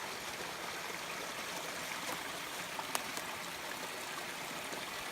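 Mountain creek running over rocks: a steady rush of flowing water, with one small click about three seconds in.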